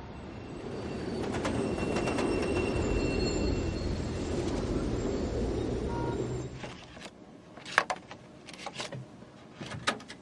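Freight train hauled by an 82 class diesel locomotive rolling past: a steady rumble for about six and a half seconds, then quieter, with sharp clicks and knocks from the hopper wagons' wheels on the rails.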